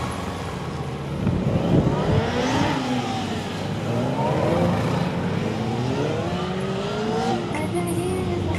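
Sport motorcycle engine revving up and down as the bike is ridden slowly through tight cone turns, its pitch rising and falling about three times.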